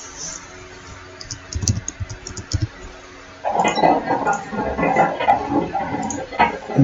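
Typing on a computer keyboard: scattered keystroke clicks and taps in the first half, then a denser stretch of clicking and clatter in the second half.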